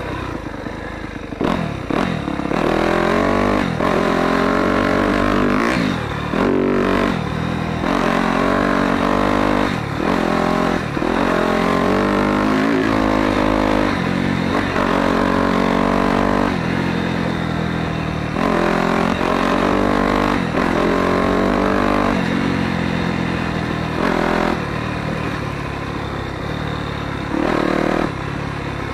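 Motocross dirt bike engine under way, revving up and falling back again and again as the throttle is worked through gear changes, with some clatter from the bike over the ground.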